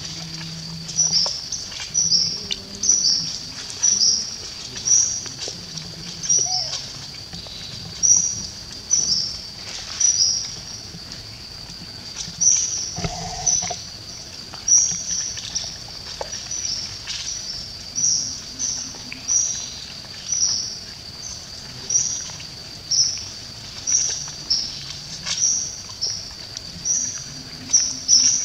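A bird repeating a short, high chirp about once a second, over a steady high insect drone.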